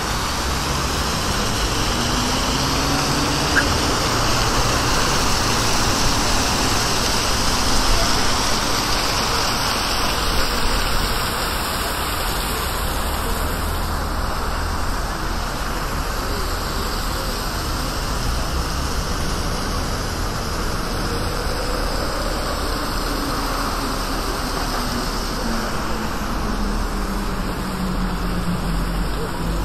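Water splashing from a fountain, fading after about twelve seconds, under steady city road traffic with cars passing.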